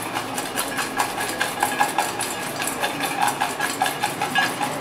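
Crisp fried potato French fries tossed around in a stainless steel bowl, rattling against the metal and each other in a quick, continuous run of dry clicks. The hard, dry rattle is the sign that the fries are fried crisp.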